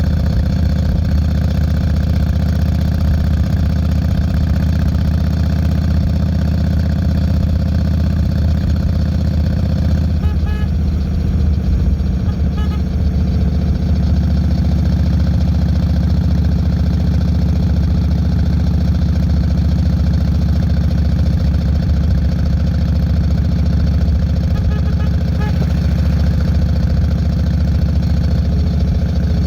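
Yamaha Road Star 1600 air-cooled V-twin running through Vance & Hines Longshots exhaust, a steady low engine note that shifts slightly about ten seconds in.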